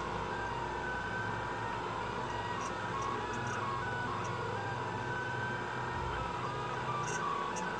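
Delta 3D printer printing: its stepper motors whine in short tones that hop from pitch to pitch as the print head moves, over a steady tone and hum.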